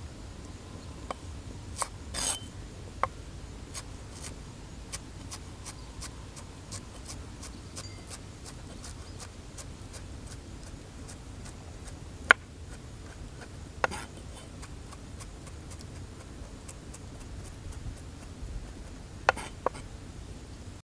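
Steel cleaver chopping fresh coriander on a wooden log chopping block: a steady run of light knocks, about two a second, with a few sharper single knocks later on.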